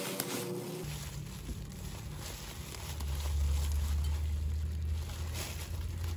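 Bubble wrap crinkling as glass mugs are handled and unwrapped, over a low steady rumble of road traffic that swells in the middle.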